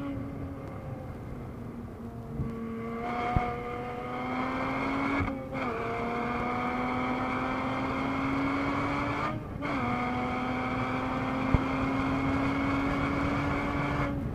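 The 3.4-litre flat-six of a 2013 Porsche Boxster S (981), heard from inside the cabin, pulling hard through the gears. Its note climbs steadily and breaks twice for upshifts, about five seconds in and again near ten seconds, with a couple of sharp ticks along the way.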